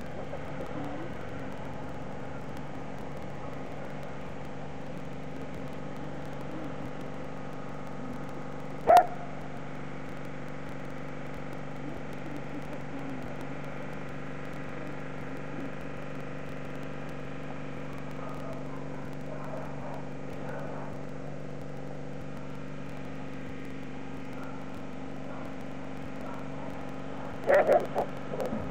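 Belgian Malinois barking at a decoy: one sharp bark about nine seconds in and a quick burst of barks near the end, over a steady mechanical hum.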